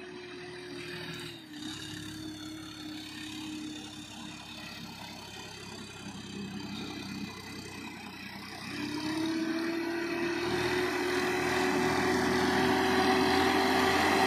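Swaraj 969 FE tractor's diesel engine running steadily under load while pulling a laser land leveler over dry soil. The engine note grows louder over the last few seconds as the tractor comes closer.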